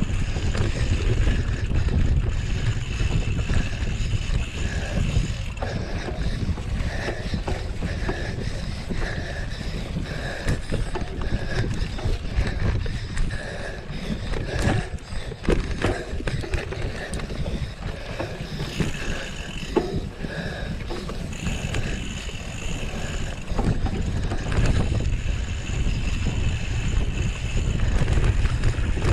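Wind rumbling on the microphone of a camera on a moving mountain bike. Short knocks and rattles from the bike come through, most of them around the middle.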